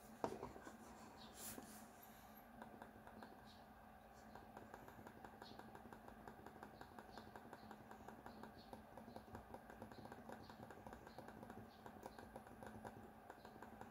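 Low-noise (silent-click) buttons of a Kakao Friends Ryan KFM-001 wireless mouse being clicked over and over: faint, muted clicks several times a second, after one sharper knock right at the start.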